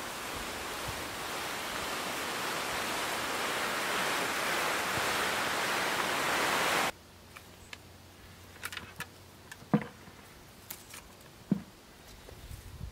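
A steady rushing hiss that slowly grows louder and cuts off abruptly about seven seconds in. After it come soft rustling and clicks from tomato vines being picked over, and a few dull thumps as tomatoes drop into a plastic 5-gallon bucket.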